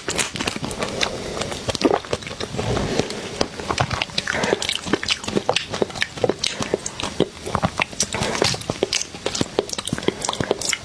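Close-up crunching and cracking of spicy crab shell being bitten and eaten, a dense run of irregular sharp cracks and crackles.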